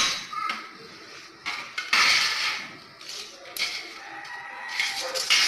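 A thin strip of sheeting being handled on a concrete floor: several short scrapes and rattles, with a longer scraping slide of about a second around two seconds in and another rattle near the end.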